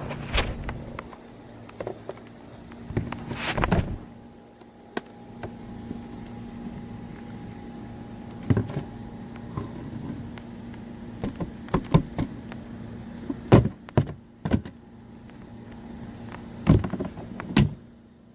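Plastic clicks, knocks and rattles from handling a Shark upright vacuum's dust cup while it is detached and emptied. The sharp taps are scattered irregularly, with louder clatters about three and a half seconds in and again near the end.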